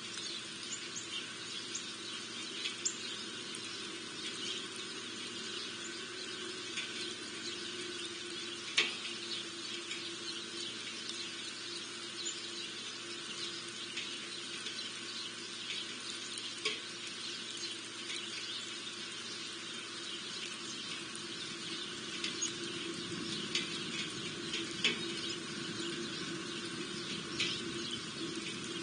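Small birds at a winter feeder giving short, scattered high chirps over a steady hiss and low hum, with one sharp click about nine seconds in.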